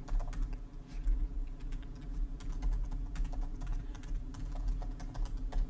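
Typing on a computer keyboard: a quick, irregular run of keystroke clicks over a low steady hum.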